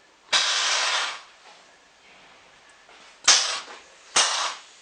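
Compressed air venting from the electro-pneumatic valves of a pipeline pigging line as the pig-launch sequence starts: first a hiss of just under a second, then two short sharp blasts of air about a second apart.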